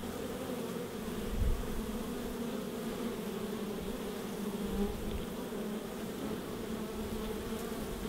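Honey bees buzzing at the hive entrance, a steady hum of many wings. A brief low bump about a second and a half in.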